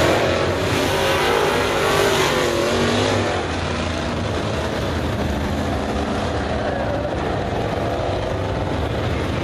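A field of dirt late model race cars running laps on a dirt oval, several V8 engines revving at once. It is louder for about the first three seconds as cars come through close by, then steadier and a little quieter as the pack moves away.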